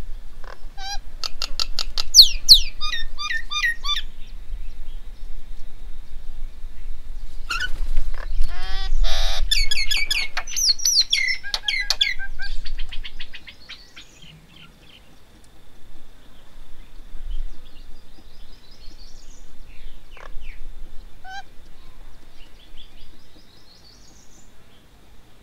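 Birds calling: two loud bursts of rapid, repeated chattering notes, a short one in the first few seconds and a longer one from about eight to twelve seconds in, then scattered softer calls.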